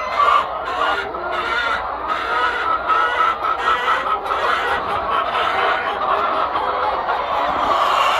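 A flock of laying hens clucking, many calls overlapping without a break.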